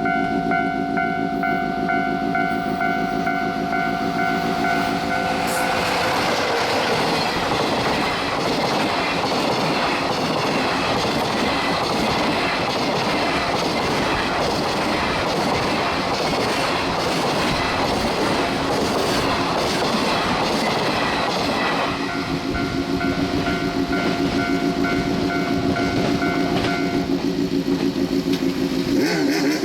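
A level crossing alarm rings in steady tones. About six seconds in, a container freight train speeding past drowns it out, its wheels clattering in an even rhythm. At about 22 seconds the train noise stops and the crossing alarm rings on.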